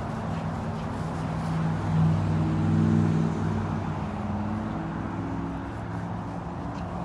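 A motor vehicle's engine running with a steady low hum that swells about two to three seconds in, as a car passing on the street would.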